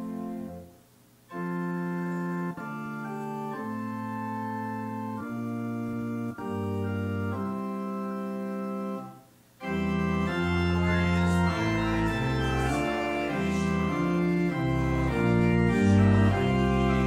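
Organ playing a psalm tune in slow, held chords, with two brief breaks between phrases about a second in and near nine seconds. After the second break it plays louder, with a fuller bass.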